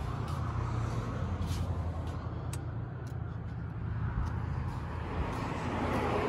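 Subaru WRX's turbocharged flat-four engine idling steadily, with a few scattered clicks and rustles as the phone is carried around.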